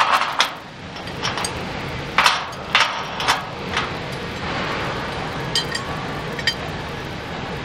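Aluminium crowd-control barrier sections clanking as they are handled and linked together. A run of sharp metal knocks comes in the first four seconds, then two lighter ringing clinks, over a steady background noise.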